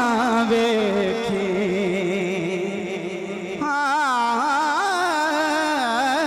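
A man singing a Punjabi naat unaccompanied by words in this stretch, holding long melismatic vowel notes with a wavering, ornamented pitch into a microphone. A short dip about halfway through is followed by a new, higher phrase.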